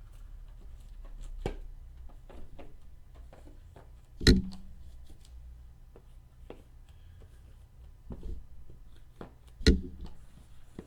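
Tabletop handling noises: scattered light clicks and rustles, with two louder knocks about four and nine and a half seconds in, over a low steady hum.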